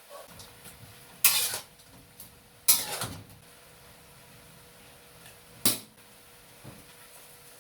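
Kitchen utensils clinking and clattering against cookware, with three louder clatters: about a second in, near three seconds, and near six seconds, plus a few faint clicks between.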